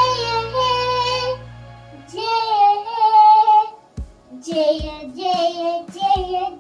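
A child singing a melody in short phrases with long held notes.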